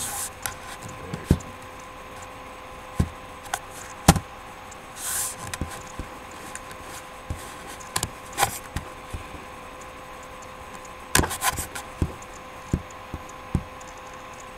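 Scattered clicks and knocks at irregular intervals, with a cluster about eleven seconds in and a short hiss about five seconds in, over a steady electrical hum.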